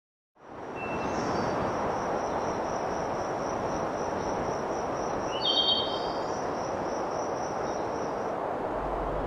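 A fast river rushes steadily, fading in about half a second in. A thin, high, steady insect trill sits above it, and a short high chirp cuts in about five and a half seconds in.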